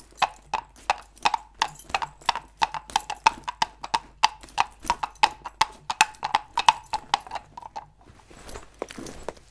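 Foley hoofbeats: two halves of a coconut shell knocked together in a steady clip-clop, about three knocks a second, imitating a horse walking. The clopping stops about eight seconds in, giving way to a soft rustle.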